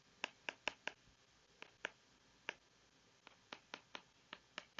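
Faint, sharp taps of a stylus on an iPad's glass screen as letters and bond lines are handwritten, coming in quick irregular clusters with short pauses between them.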